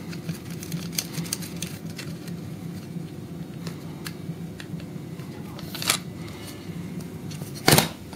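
Light metallic clicks and ticks of a spanner turning a nut on a freeline skate's wheel bracket, with a louder knock near the end as the metal skate is set down on the wooden table.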